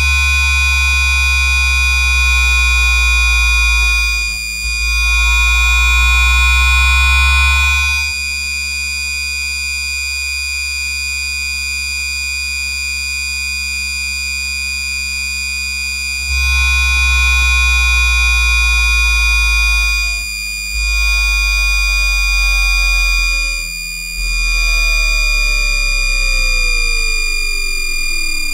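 Siemens two-level IGBT VVVF traction inverter of a Houston METRORail H1 light-rail car, picked up electromagnetically by an inductor sensor beside the traction motor: a steady whine from the constant 1200 Hz asynchronous carrier, with other tones gliding slowly down as the train brakes. From about 8 to 16 s it drops to a quieter steady level while the train cruises. Braking then resumes with brief dropouts, and near the end the tones sweep steeply down as the train slows to a crawl.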